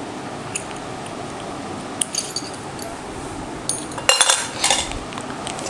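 Small metal piping tips clinking against a metal tin as they are handled and put away: a few light clinks, then a busier run of clinks and rattles about four seconds in, over a steady background hiss.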